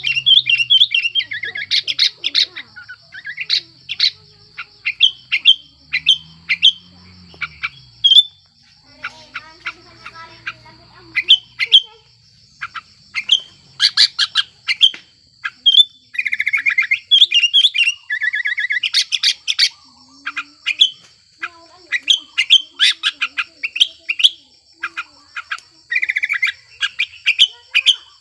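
Sooty-headed bulbul (kutilang) calling and singing in an excited, breeding-condition (birahi) state: rapid runs of short, sharp chirps broken by brief whistled phrases, with hardly a pause.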